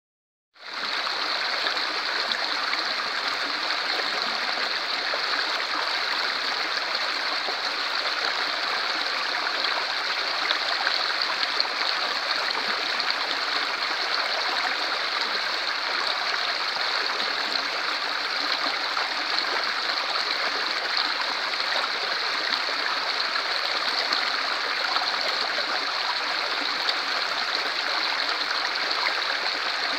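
Shallow rocky stream running over small cascades between stones: a steady rush of flowing water that starts abruptly about half a second in.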